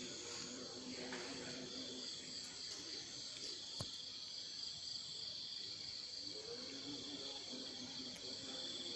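Steady chorus of night insects, a high pulsing chirring in two pitches, with faint low murmuring at times and one small click about four seconds in.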